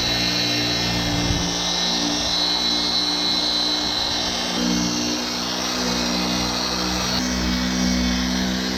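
Small 3-inch electric polisher running steadily, buffing swirl remover into a plastic headlight lens as the final polishing step. It starts abruptly, and its whine shifts a little in pitch midway as the pad works the lens.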